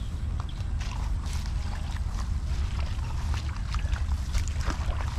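Water splashing and sloshing in many short irregular strokes over a steady low rumble.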